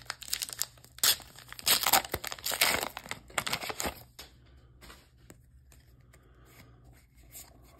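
Foil wrapper of a Flesh and Blood booster pack being torn open and crinkled, loudest in the first four seconds. After that comes fainter rustling and light clicks as the cards are handled.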